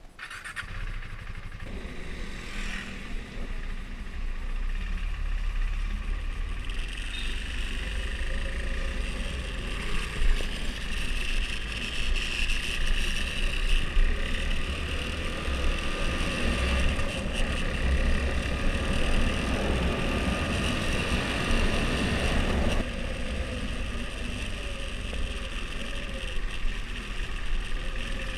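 Husqvarna Svartpilen 401's single-cylinder engine running through its stock exhaust while riding. The sound grows louder over the first six seconds and eases off a little about twenty-three seconds in.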